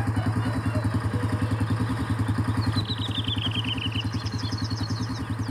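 Side-by-side UTV engine idling with a steady, even pulse. A bird sings a short descending trill about halfway through and another near the end.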